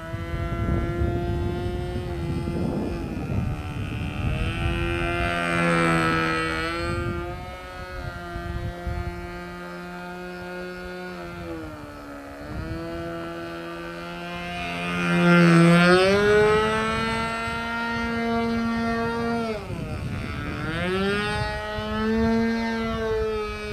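Evo .36 two-stroke glow engine with an 11x4 propeller buzzing in flight on an RC plane, its pitch falling and rising several times as it throttles and passes; loudest about fifteen seconds in.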